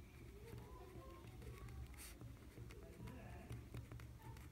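Faint scratching of a pen writing on paper, with small ticks as the pen strokes, over a low steady hum.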